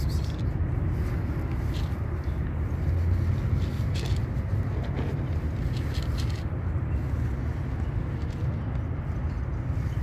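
A cat crunching dry kibble, a few short crisp crunches at irregular intervals, over a steady low rumble of city traffic.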